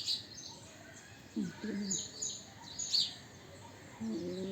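Birds chirping in short high calls, with low murmured voices twice.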